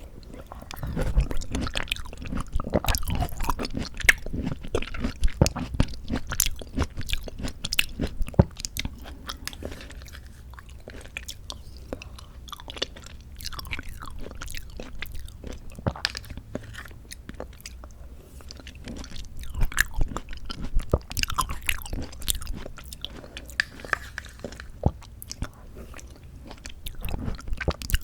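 Close-miked chewing of canned mandarin orange segments from a fruit cup: wet, squishy mouth sounds with many small clicks. It is louder for the first several seconds and again in a stretch about two-thirds of the way through, softer in between.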